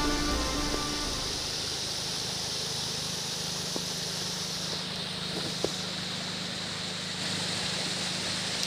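A small forest stream running over stones, a steady hiss of water. The tail of background music fades out about a second in.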